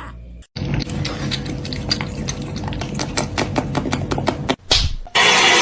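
A rapid run of light clicks and clinks, several a second, like utensils or hard bits against a dish, for about four seconds. Near the end a loud steady rushing noise starts.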